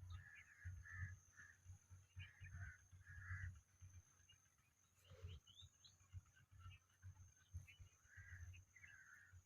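Indian ringneck parrot giving faint, soft chirps in small clusters, with a couple of quick rising whistles about five seconds in, over an uneven low rumble.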